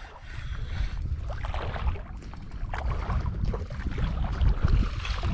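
Wind buffeting the microphone in a steady low rumble, with scattered splashes of a hooked pike thrashing at the water's surface.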